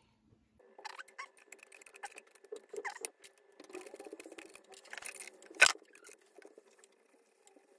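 Small irregular clicks and scrapes of a hex key and wrench working the adjusting screws and lead screw on a Proxxon MF70 mini milling machine's metal column and head, with one sharper click about five and a half seconds in.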